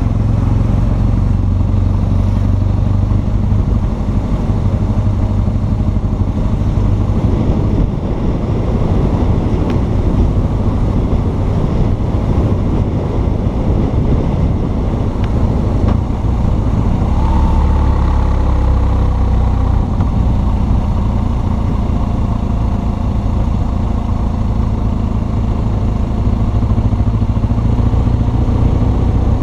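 BMW R1200 GS Adventure's flat-twin boxer engine running steadily as the motorcycle rides along, its pitch shifting about 17 seconds in.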